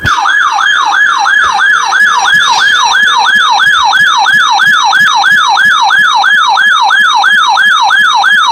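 Electronic siren sounding as an emergency alert: a loud, fast yelp of repeated downward pitch sweeps, about three a second, held steady throughout.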